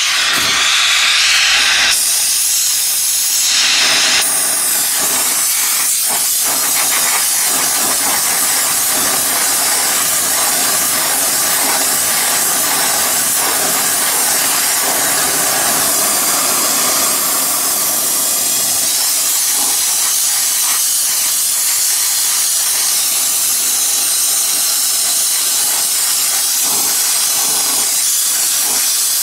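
Oxy-propane torch flame hissing steadily as it preheats the crack in a cast-iron woodworking plane body, ahead of brazing. It is louder for the first few seconds.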